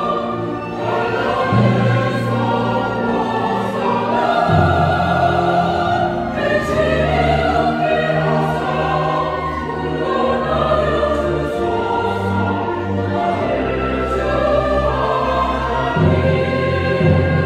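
Mixed church choir singing a Korean-language anthem, accompanied by a string orchestra and piano. A low, held bass line comes in about four seconds in and carries under the voices until near the end.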